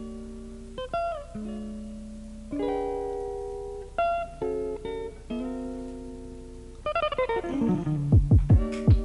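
Background music of plucked-string chords, each struck sharply and left to ring out and fade, with a quick falling run of notes and swooping pitch near the end.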